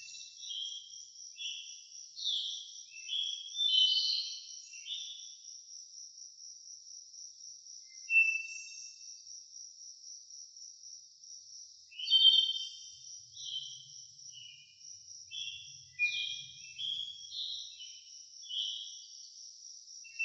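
Crickets chirping in a steady, fast pulse throughout, while a songbird sings a quick run of varied short notes at the start and again past halfway, with a lone note in between.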